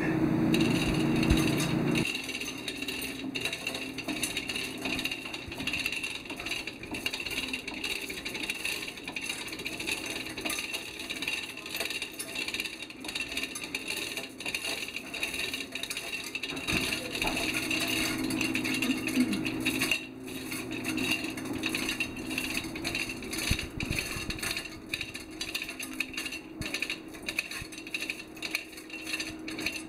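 Chain-hoist chains clinking irregularly as they are handled and rigged around a steam-engine piston rod, over a steady hum.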